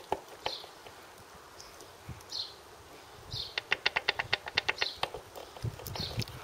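A rapid run of about a dozen sharp metallic clicks, roughly a second and a half long in the middle, as the splined input shaft of a Land Rover Series 3 gearbox is turned by hand in its bearing; a few single clicks before it.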